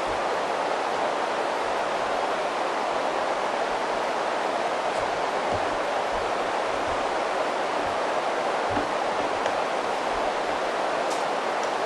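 Steady, loud hiss from a cheap camcorder's faulty microphone, which seems to be disconnected. It drowns out almost everything else, leaving only a few faint low knocks underneath.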